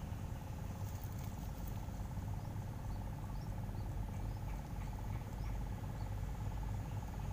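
A steady insect trill, one unbroken pulsing buzz, over a low rumble of wind or handling noise on the microphone. A few short, faint high chirps come in the middle.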